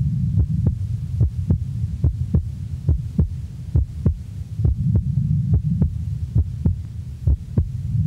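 Normal heart sounds auscultated at the base left: a regular series of lub-dub beats in which the second heart sound splits with each inspiration, a physiological split. Breath sounds and a low rumble run beneath the beats.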